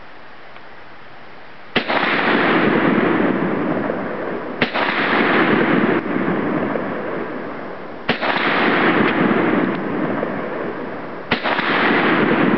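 A Chinese Norinco SKS semi-automatic rifle in 7.62×39mm fired four single shots, about three seconds apart, the first about two seconds in. Each sharp crack is followed by a loud hissing wash that slowly fades.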